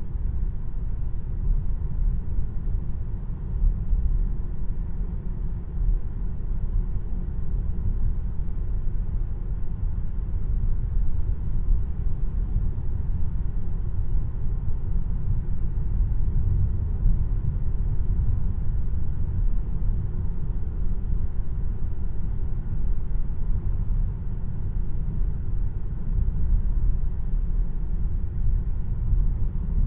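Steady low road and tyre rumble inside the cabin of a Tesla Model 3 RWD electric car while it drives.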